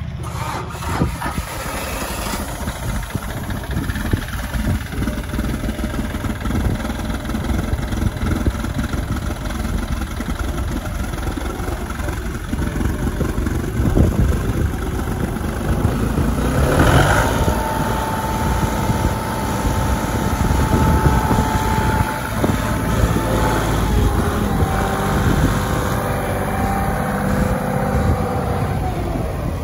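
A John Deere 5055D tractor's three-cylinder diesel engine running steadily. A little past halfway it picks up speed, and a steady whine comes in.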